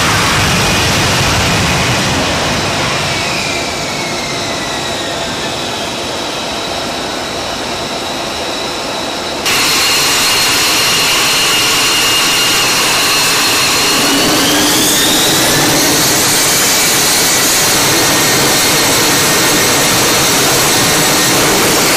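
Lockheed Martin F-35B's Pratt & Whitney F135 jet engine running loud at close range, its whine falling in pitch over several seconds. After a sudden cut to a louder stretch, the whine rises in pitch about two-thirds of the way through.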